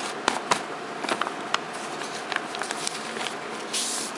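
Paper crinkling and rustling as hands tear open a kraft-paper envelope, with scattered sharp crackles. Near the end comes a brief sliding swish as a sheet of paper is drawn out of it.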